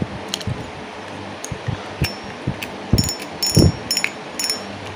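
Spinning reel being handled and taken apart by hand: a run of light clicks and dull knocks, then from about three seconds in sharper metal clinks that ring briefly, as its metal parts knock together.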